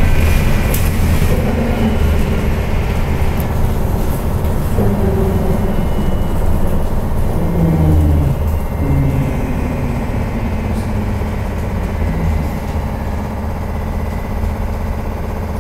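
Inside a ZiU trolleybus under way: a steady low rumble from the road and running gear, with a whine that shifts in pitch now and then.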